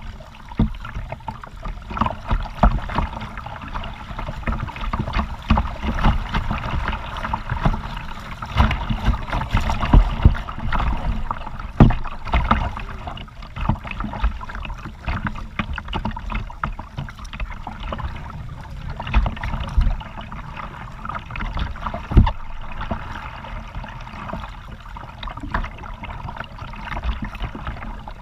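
Kayak paddling: paddle strokes splashing and dripping water, with a steady wash of moving water and frequent sharp knocks, the loudest of them about 10, 12 and 22 seconds in.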